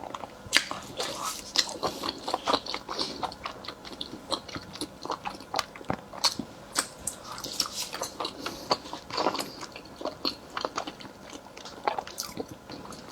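Close-miked mouth sounds of a person eating and chewing food, a steady run of many short, irregular wet clicks and bites.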